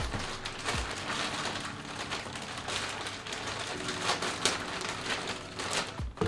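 Clear plastic packaging bag crinkling and rustling in quick, irregular crackles as it is pulled open around a backpack.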